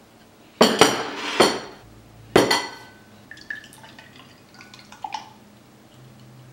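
A plate and a glass tumbler set down on a desk: four sharp knocks with ringing, then orange juice poured into the glass, much quieter, with light glassy clinks.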